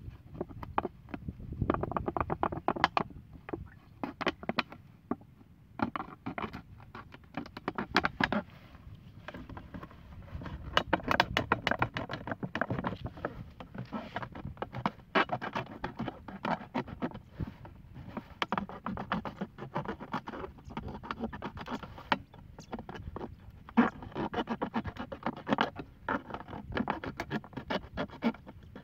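A small knife cutting and sawing through a thin plastic bottle: the blade scrapes and crackles through the plastic, with the bottle crinkling as it is gripped. It comes in spells of quick scratchy strokes broken by short pauses.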